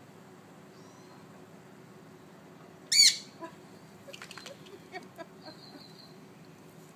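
A parrot gives one loud, short squawk about three seconds in, followed by a run of short clicks and a few soft high chirps.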